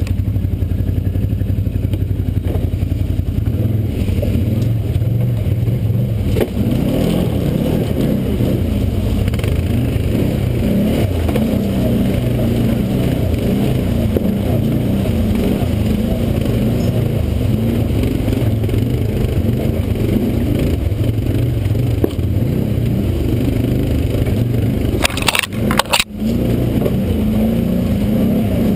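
ATV engine running at low, varying speed as the quad crawls over rocks and brush, with a few sharp knocks near the end.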